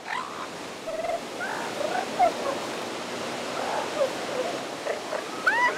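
Elephant seals calling in short, scattered yelps over the steady wash of surf, with a louder, higher call near the end.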